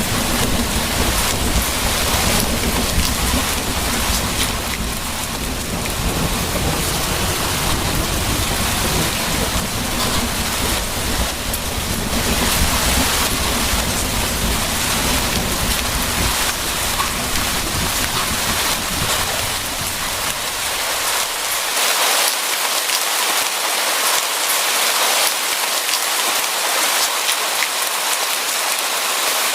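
Steady rain pattering, with a low rolling rumble of thunder that dies away about two-thirds of the way through, leaving the rain on its own.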